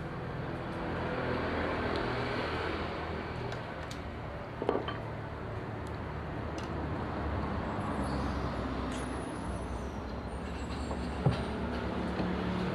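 A steady low motor rumble with two sharp knocks, one about five seconds in and one near the end.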